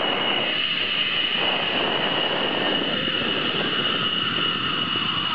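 Zipline trolley pulleys running fast along the steel cable: a steady high whine over a rushing noise.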